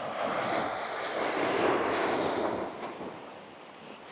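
Sea waves washing in on a coral shore, swelling to a peak about two seconds in and then falling away, with some wind on the microphone.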